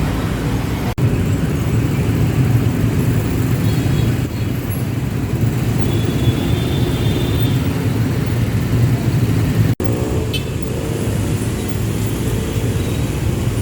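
Jammed road traffic: the steady low rumble of idling and crawling cars and motorcycles, with a few short horn toots. The sound cuts out for an instant twice.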